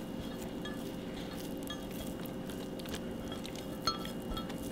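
Shredded rotisserie chicken being piled by hand onto a leafy salad in a bowl: soft handling noises and scattered small clicks, with one sharper click near the four-second mark, over a steady faint hum.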